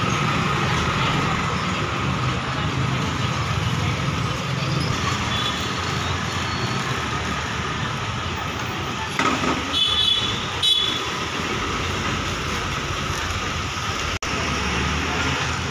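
Buses' diesel engines running as they drive past at low speed in street traffic, a steady low rumble. Just under ten seconds in, a horn gives two short toots.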